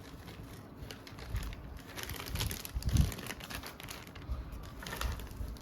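Phones and loose phone parts being handled and set down on a table: scattered light clicks and taps, with one louder knock about three seconds in.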